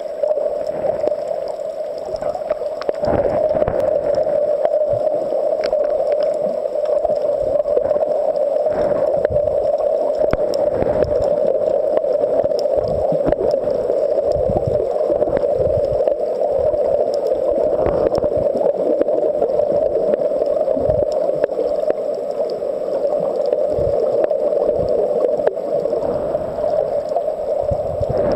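Underwater sound heard through the camera's waterproof housing: a steady, muffled rushing drone, broken by irregular low thumps as water moves against the housing.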